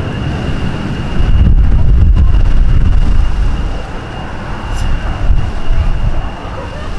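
Wind buffeting the microphone in uneven gusts, loudest for about two seconds starting a second in, over a steady high-pitched whine.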